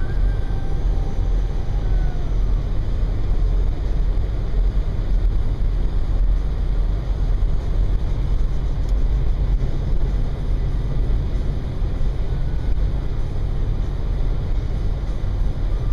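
Steady low rumble of an all-wheel-drive car cruising at highway speed, heard from inside the cabin: tyre noise on a packed-snow road with engine noise underneath.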